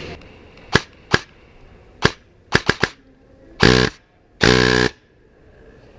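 Airsoft guns firing: several single sharp shots, a quick string of four, then two short rapid-fire bursts.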